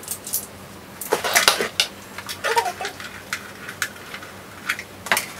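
Hard plastic and metal parts of a ring light kit clicking and clattering as they are handled and fitted together, with a burst of clatter about a second in. A short warbling squeak sounds about halfway through.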